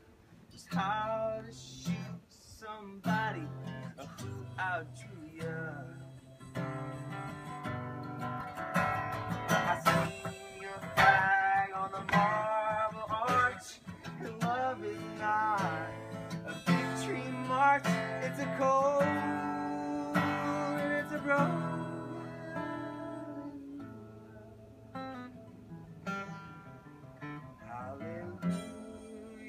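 Harmonica playing over a strummed acoustic guitar, its notes sliding and wavering in pitch.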